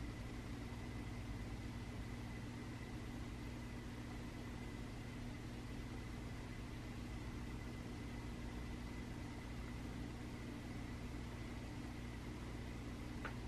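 Steady low hum of room tone with a faint thin high whine over it, and one faint click near the end.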